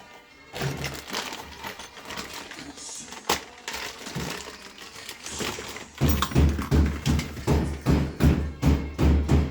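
Clatter and knocks of hand work on a garbage disposal, then about a dozen heavy thumps, roughly three a second, over the last three seconds.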